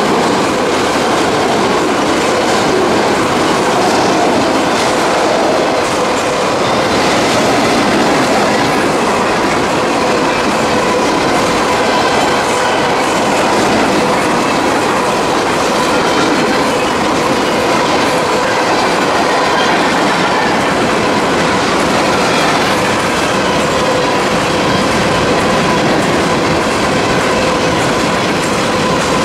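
Freight train cars rolling steadily past close by: wheels clacking over the rail joints amid a continuous loud rumble, with a thin, steady squeal running over it.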